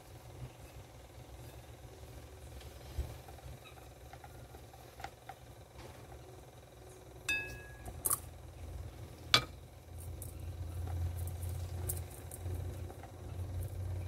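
Tools and fingers working the soil inside a glass fishbowl terrarium: faint scrapes and scattered light clicks, one brief ringing clink of the glass about seven seconds in and a sharp tap about nine seconds in. A low hum underlies the second half.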